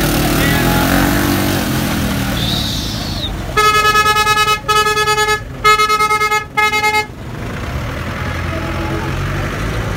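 A vehicle horn honks four times in quick succession over about three seconds, over the low rumble of running engines.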